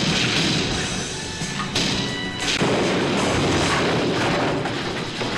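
Action-film soundtrack: music with loud crash and impact effects as a car wrecks and ends up on its side.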